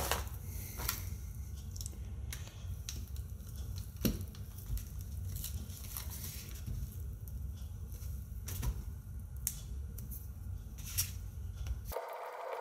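Snap-off utility knife cutting through a rubbery block of Vinamold moulding compound, with soft slicing sounds and a few sharp clicks spread through, over a low steady hum.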